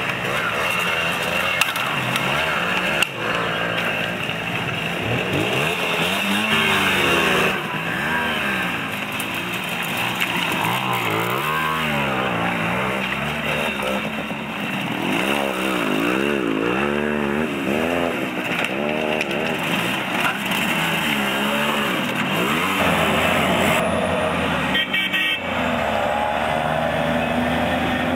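Small moped engines revving hard under load, their pitch rising and falling again and again as they climb over loose stones. A steadier engine note takes over near the end.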